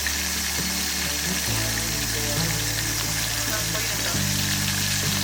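Chicken karaage deep-frying in hot oil: a steady crackling sizzle.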